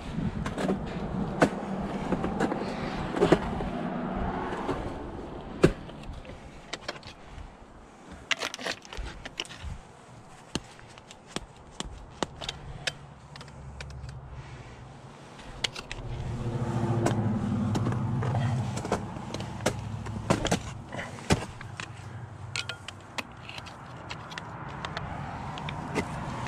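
Ice axes hacking into waterfall ice: repeated sharp strikes at an irregular pace, with chips of ice breaking off. A steadier low noise comes up for a few seconds past the middle.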